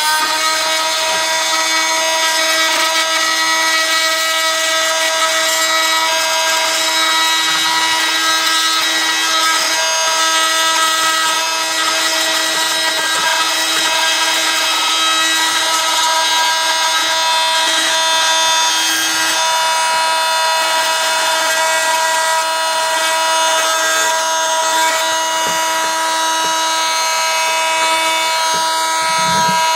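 A small handheld electric saw, used in place of a grinder, grinds off the knobs inside a poultry feeder base where a jar twists on. It makes a loud, noisy, steady high whine.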